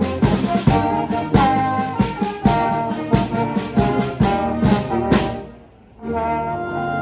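Background music with a steady beat, fading out about five seconds in; a different, slower piece of held notes starts near the end.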